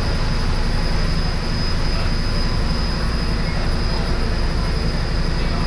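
Steady low engine rumble of a large vehicle under way, with a constant high-pitched whine above it.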